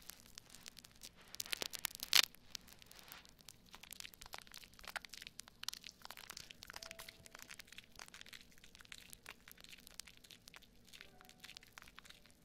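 Bubbly foam crackling and popping as lathered hands rub and squeeze it on the ears of a binaural microphone, close-miked: a dense run of tiny pops, loudest about two seconds in.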